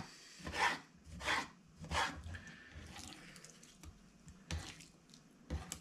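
Kitchen knife cutting squid on a wooden chopping board, the blade tapping the board with each cut: three quick cuts, then a pause with faint rubbing, then two more cuts near the end.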